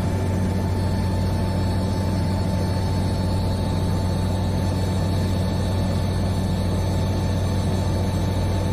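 Steady drone of a helicopter in flight, heard from inside the cabin: a deep hum from the rotors and engine with a steady higher whine over it.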